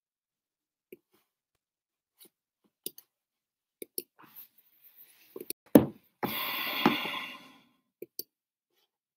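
Scattered light clicks and knocks, a sharp thump about six seconds in, then a rustle lasting about a second and a half.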